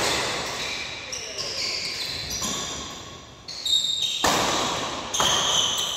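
Badminton rally: about four sharp racket strikes on the shuttlecock, echoing in the hall, with short high squeaks of shoes on the court floor between them.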